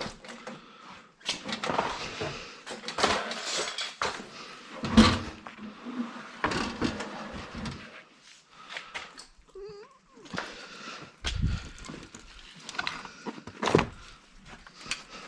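E-waste being handled and set down: irregular knocks, clatters and rustling, with a short wavering high-pitched squeak about ten seconds in.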